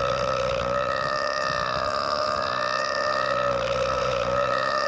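A cartoon character's long, drawn-out burp, held at a nearly steady pitch with a slight waver.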